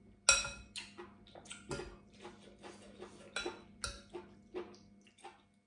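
Metal spoon clinking and scraping against a glass serving bowl while scooping, a string of sharp ringing clinks, the first the loudest.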